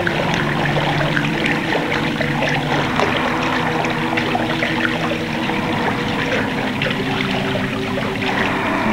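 Film soundtrack of held low musical tones that shift from note to note every second or two, layered over a steady crackling noise of running, trickling water.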